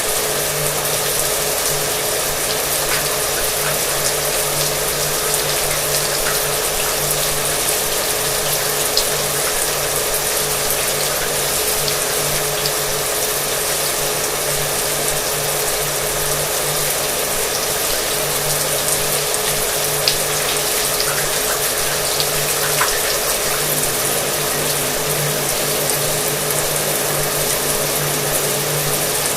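Shower water running steadily, with a hair dryer's motor and fan running in the background as a constant hum under the hiss of the spray.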